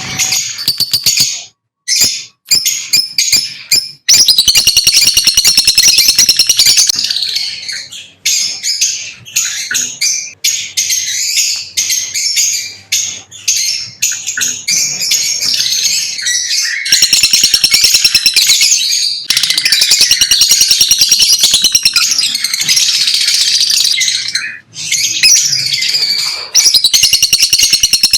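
Lovebirds chirping loudly in fast, high-pitched chatter, with a few short breaks.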